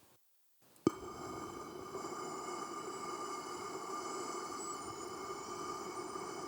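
A sharp click a little under a second in, then a steady rushing noise with several held tones through it, an even, unchanging drone.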